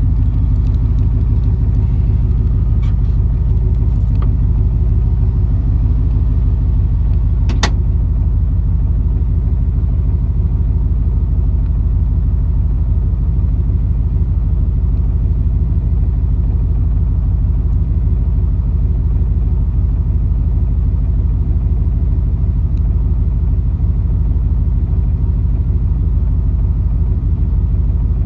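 A car engine idling steadily close by: a deep, even rumble. A single sharp click comes about seven and a half seconds in.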